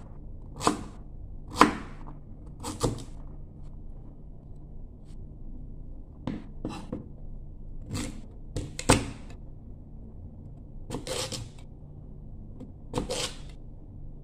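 Kitchen knife chopping firm yellow fruit on a wooden cutting board: about a dozen separate knocks of the blade against the board, spaced unevenly, some in quick pairs and some with pauses of a few seconds between them.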